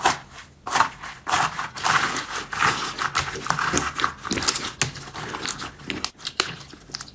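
Slime being squeezed and poked by hand, giving off a dense run of crackling, popping clicks with bursts of wet squishing.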